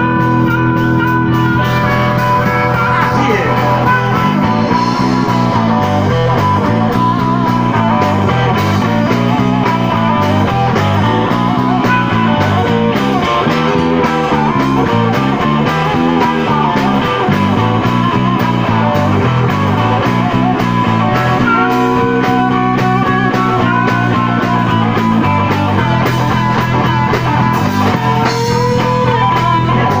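Live blues-rock band playing an instrumental break: electric bass stepping up and down in a repeating line under electric guitar and drums, with a harmonica holding long notes and bending one upward near the end.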